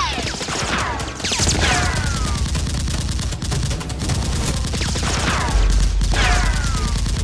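Rapid bursts of gunfire, with several falling whines among the shots.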